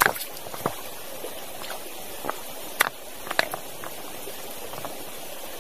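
Stream water running steadily, with a handful of sharp clicks and knocks scattered through it, the loudest just after the start and about three seconds in.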